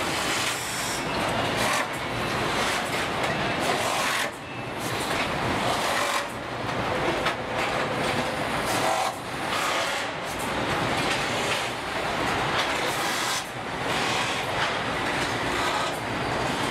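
Car assembly line floor noise: a steady din of machinery and moving conveyors, with scattered knocks and short clanks.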